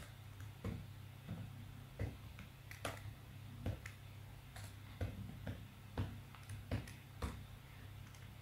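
Computer keyboard keystrokes as code is typed slowly: single sharp clicks at uneven spacing, about one every half second.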